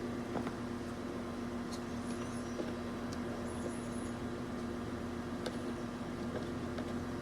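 A steady electrical hum, with faint small clicks and a few brief high-pitched squeaks about two and three and a half seconds in.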